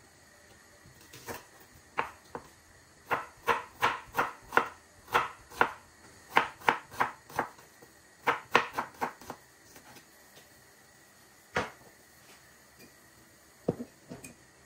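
A knife chopping on a cutting board: a run of quick, sharp strokes about three a second lasting some six seconds, with a few single knocks before and after.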